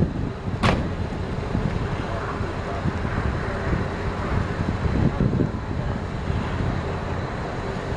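The 7.4-litre gasoline V8 of a 2000 GMC 3500 truck running steadily at idle, with wind buffeting the microphone. A single sharp click comes under a second in.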